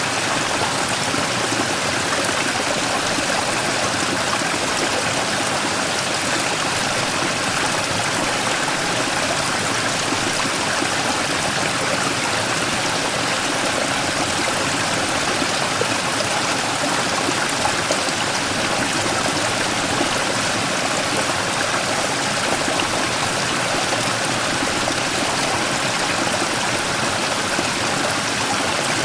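Mountain stream rushing and splashing over a large rock in a small waterfall, a steady unbroken water noise.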